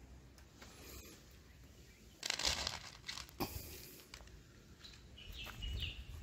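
Dry cat kibble rattling out of a small plastic cup onto a paper plate, in two noisy bursts a little after two and three seconds in, the second ending in a sharp click.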